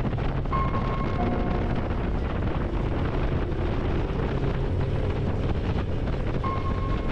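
Motorcycle riding at speed: wind buffeting the microphone over a steady low engine rumble.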